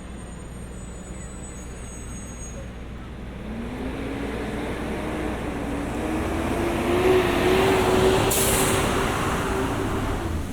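A heavy road vehicle such as a city bus or truck comes close, its engine note rising slowly as it builds speed and grows louder. A short sharp hiss of released air, like an air brake, comes about eight seconds in.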